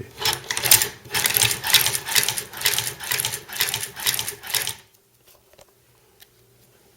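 Hand-cranked Chinese leather patcher sewing machine (a Singer 29K-style clone) stitching through two layers of thick vegetable-tanned leather: a rhythmic mechanical clatter of about three strokes a second that stops just before the five-second mark.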